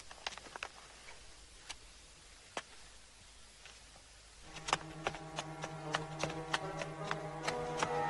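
A few faint scattered clicks in a quiet room. Then, a little past halfway, film score music comes in with a low held drone and sustained notes, together with the steady clip-clop of hooves at about three beats a second.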